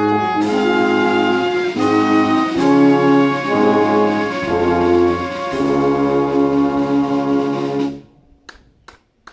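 Brass band of tubas, trombones and horns playing sustained chords, with a few percussion strokes near the start. It ends on a long held final chord that cuts off about eight seconds in, followed by a few faint taps.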